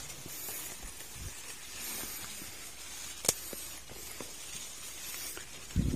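Steady outdoor hiss with a few light clicks, a sharper one about three seconds in, and a dull thud near the end.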